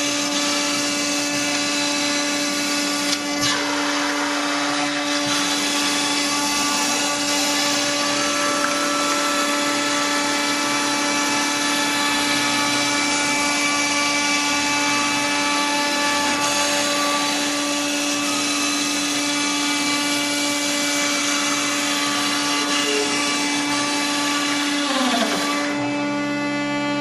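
REU1212 CNC router's spindle running at a steady high whine while milling, with a dense cutting hiss over the tone. The hiss thins a little near the end.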